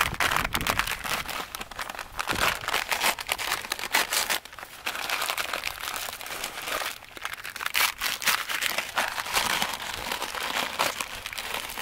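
Brown paper bag crinkling and rustling as hands fumble to pull it open, a continuous run of irregular crackles.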